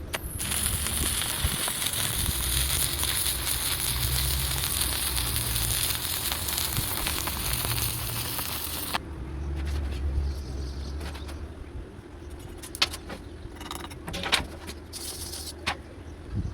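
Stick-welding arc on a 2.5 mm 308 stainless electrode, crackling and sizzling steadily for about eight and a half seconds, then cutting off suddenly as the arc is broken. A few sharp taps follow near the end.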